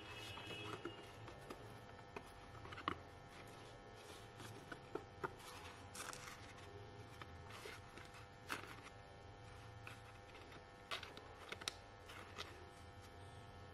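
Faint, scattered scraping and light clicks of a card-paper circle's edge being dipped and rolled through loose glitter in a round tin, over a steady faint hum.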